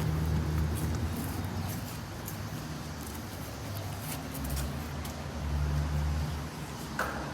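Low steady mechanical hum of outdoor air-conditioner units running, swelling and fading a little, with a brief click near the end.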